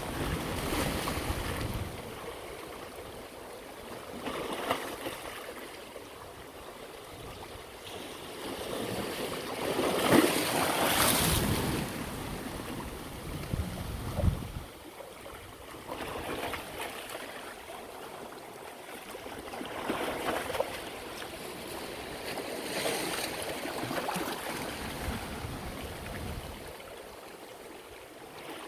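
Sea waves breaking and washing in, the noise swelling every few seconds and easing between. The loudest wave comes about ten seconds in.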